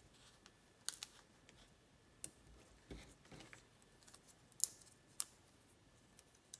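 Faint scattered clicks and crackles of adhesive foam dimensionals being peeled off their backing sheet and handled between the fingers, with a soft rustle of paper about three seconds in.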